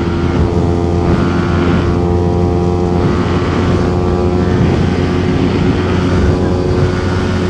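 Yamaha R15 V4's 155 cc single-cylinder engine held at high, steady revs at about 125 km/h, its pitch barely changing, with wind rush over it.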